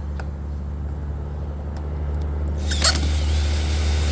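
A steady low rumble, with a brief sharp squeak or scrape about three seconds in.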